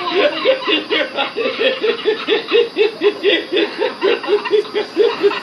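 A man laughing hard in a long, rapid run of short high-pitched 'ha' pulses, about five a second, each dipping slightly in pitch, stopping abruptly near the end.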